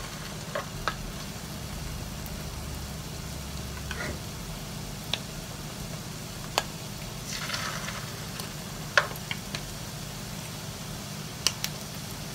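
Hot oil sizzling steadily in a frying pan as spoonfuls of rice-and-cheese batter fry into small patties, with a swell of sizzling about seven seconds in. A few sharp clicks of a spoon against the pan.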